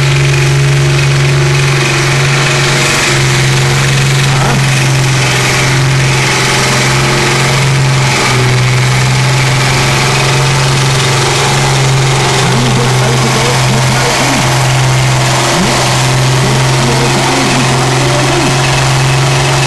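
Deutz 106 pulling tractor's diesel engine running flat out under full load as it drags the weight-transfer sled: a loud, steady drone. Its fuel injection has been modified for pulling.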